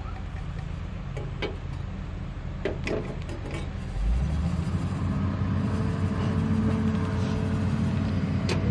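Portable gas stove being lit: a few sharp clicks as the knob is turned, then about four seconds in the burner catches and keeps running with a steady low rush of flame.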